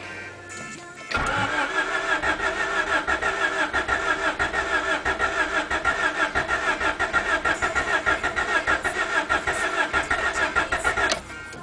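Honda D16Z6 1.6-litre four-cylinder engine cranking on the starter motor with an even, rapid pulsing for about ten seconds without catching, then the starter stops. It turns over but does not fire.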